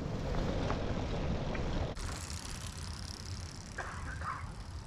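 Rumble of wind and road noise from a bicycle being ridden. About two seconds in it changes suddenly to a quieter, hissy outdoor ambience, with a brief higher-pitched sound near the end.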